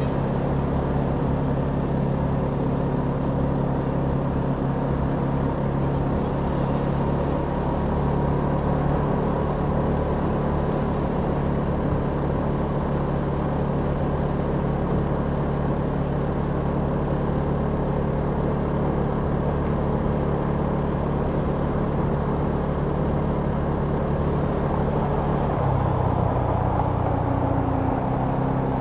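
Kymco Downtown 350i scooter's single-cylinder engine running at a steady note, its pitch shifting briefly near the end.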